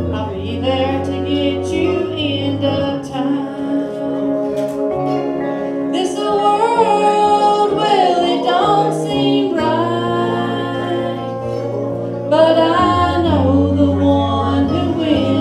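Live gospel singing by women's voices with instrumental backing of guitar and low bass notes. The singing swells louder about six seconds in and again about twelve seconds in.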